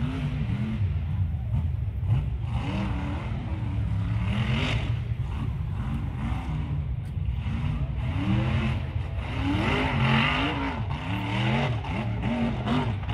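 Rock racing buggy's engine revving hard in repeated surges, its pitch climbing and dropping again and again, as on a throttle-blipping climb over rocks.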